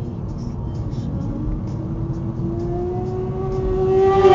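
Road rumble of a moving car, with the engine whine of racing motorcycles at high revs growing louder and slowly rising in pitch as they approach. It is loudest near the end, where an oncoming car rushes past.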